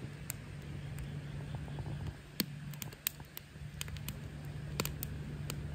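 Split firewood crackling in a folding metal fire pit: scattered sharp pops at irregular intervals, over a steady low hum.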